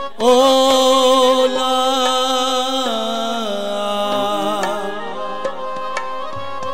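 Qawwali music: a long held melodic note starts just after the opening and steps down in pitch about three seconds in. Tabla strokes come in over the last couple of seconds.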